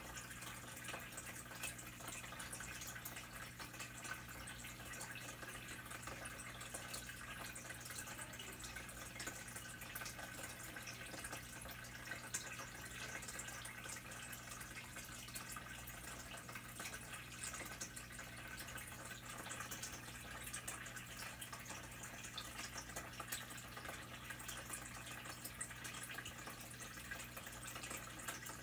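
Faint, steady trickling water with many small drips and clicks, over a low steady hum.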